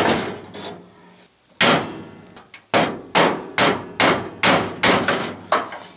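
Hammer blows on a car's chrome grille braced with a wooden stick, straightening the bent grille bar: one blow, another a second and a half later, then a quick run of about eight more, each ringing briefly.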